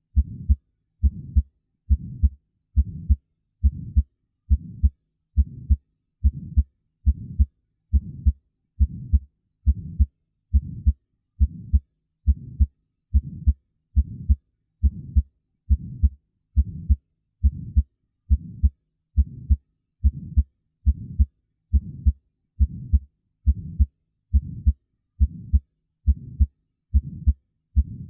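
Auscultated heart sounds with an innocent (physiologic) systolic murmur, a soft whoosh between the two sounds of each lub-dub. The rhythm is steady at just over one beat a second. The murmur comes from turbulent blood flow as the ventricles eject blood toward the semilunar valves, and is considered normal, not a sign of heart disease.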